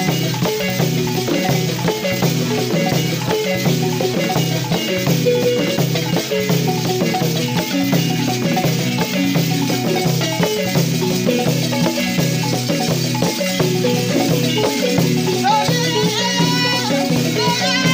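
Balafon and two stick-beaten barrel drums playing fast, continuous traditional West African dance music.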